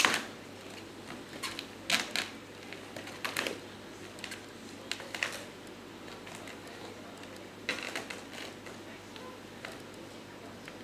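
Kittens' claws scratching and catching on fabric sofa upholstery as they climb, in short scrabbling scratches every second or two.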